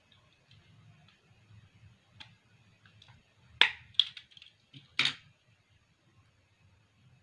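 Crimping tool clicking and snapping: a couple of faint clicks, then three loud, sharp snaps within about a second and a half near the middle.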